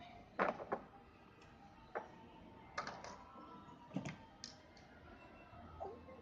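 Plastic bristle block toys knocking and clacking against a tabletop and a plastic box as a toddler handles them: about half a dozen light, irregular knocks.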